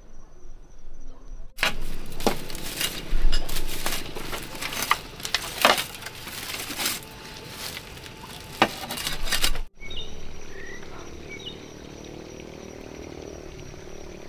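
Dry grass rustling and crackling as it is handled and pushed into a bamboo wall, with many sharp dry snaps, from about a second and a half in until it cuts off suddenly near the ten-second mark. Before and after it there is only a faint, steady high tone.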